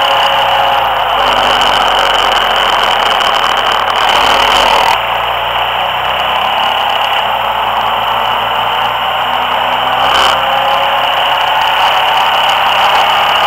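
Loud, steady rush of wind over a small mounted camera's microphone while riding at road speed, with an engine drone underneath that drifts slightly in pitch. A short bump is heard about ten seconds in.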